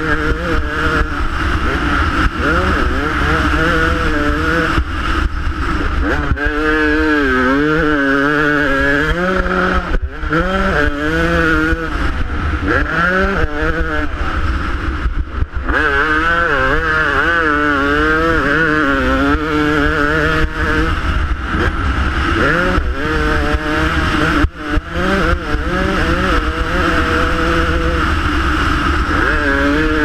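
Motocross dirt bike engine revving up and falling off again and again as the rider works the throttle around the track, with a couple of brief cut-offs, heard from a helmet-mounted camera.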